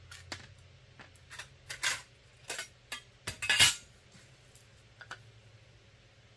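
Stainless steel parts of a submersible pump end clinking and scraping as the wire guard is worked off: a string of sharp metal clinks over the first four seconds, the loudest about three and a half seconds in.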